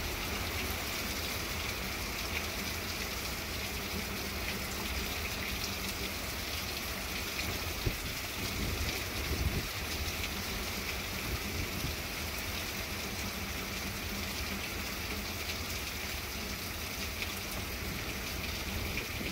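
Steady rain from Hurricane Milton pouring down, an even hiss with a low, fluttering rumble of wind underneath.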